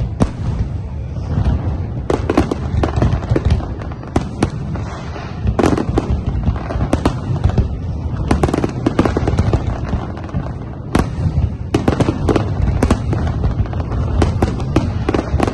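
Fireworks display: rapid, irregular volleys of bangs and crackles over a constant low rumble.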